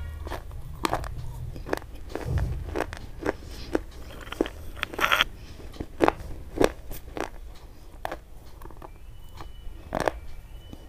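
Crunchy, brittle white sticks being bitten and chewed right at the microphone: a string of sharp, crisp snaps, several a second, with a denser crackling run about halfway through.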